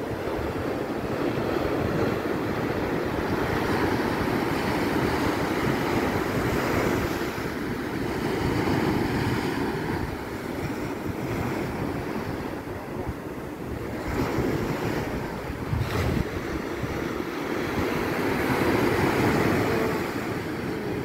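Sea waves washing steadily, with wind buffeting the microphone.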